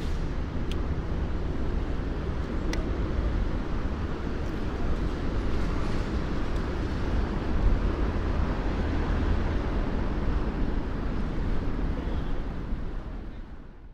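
Steady city traffic noise with a deep rumble, with two short clicks in the first three seconds; it fades out near the end.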